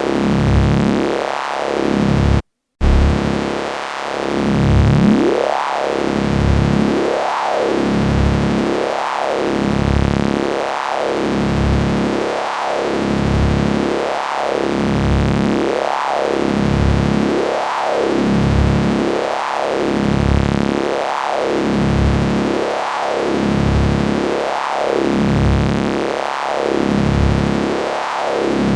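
Synthesized sci-fi electricity effect: a dense electric buzzing hum whose tone sweeps up and down about every second and three-quarters. It cuts out for a fraction of a second about two and a half seconds in.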